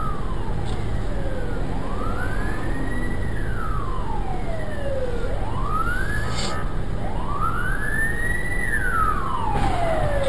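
Emergency vehicle siren wailing, slowly rising and falling in pitch about three times, over the steady low rumble of traffic. Near the end a few sharp knocks start.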